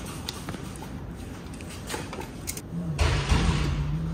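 A few light clicks and knocks, then a motor starts shortly before three seconds in and runs with a steady low hum and a louder rushing noise.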